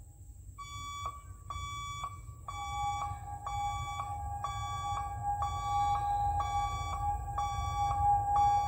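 Railway level-crossing warning alarm sounding, a ringing beep repeated about twice a second. A steady high tone joins it about two and a half seconds in and holds.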